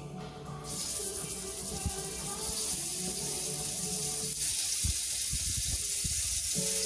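Seasoned chicken going into hot olive oil in a wok and frying: a loud, steady sizzle that starts suddenly about a second in and grows a little louder partway through.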